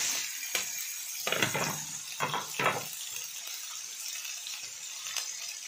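Cubes of raw pumpkin dropping into hot mustard oil in an iron kadhai, the oil sizzling steadily, with several soft knocks as the pieces land in the first three seconds.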